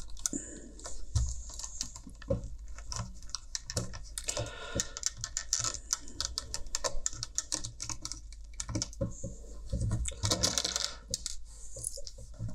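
Quick plastic clicks, taps and scrapes from hands handling and working apart a pair of Bluetooth headphones at the headband hinge and earcup. The clicks come thickest in two flurries, about four seconds in and again around ten seconds.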